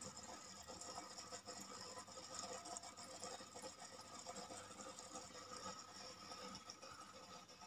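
Faint steady hum of a small aquarium filter pump running, with a light crackle over it.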